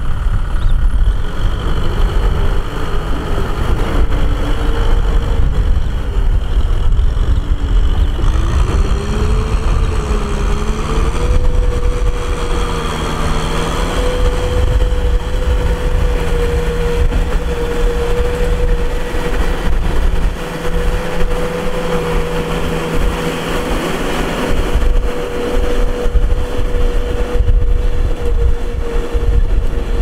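Kubota tractor's diesel engine running under load as it pulls a disc plough through mud. Its pitch wavers up and down for the first ten seconds or so, then holds steady.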